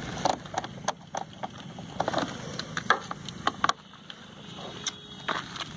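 Irregular sharp clicks and light knocks of a screwdriver and hard plastic as the screws of a Honda Shine's air filter box cover are undone by hand, with the engine off.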